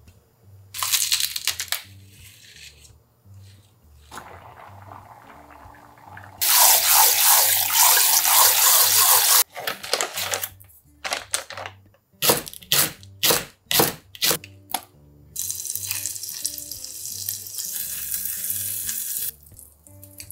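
Water running from a tap into a glass measuring cup of rice in two loud spells, with a run of short sharp sounds in between, over soft background music.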